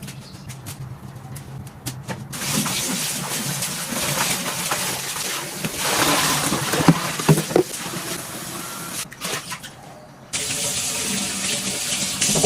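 Water running from a tap into a sink, turned on about two seconds in, with a few clunks in the middle; it stops for about a second near the end and then runs again.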